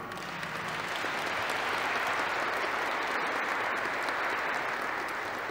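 Audience in church pews applauding steadily at the end of a song, the clapping easing off slightly near the end.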